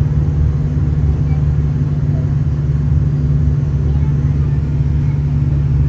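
Volare V9L microbus's Agrale-chassis diesel engine running under steady load at a constant speed, heard from inside the cabin as an even low drone.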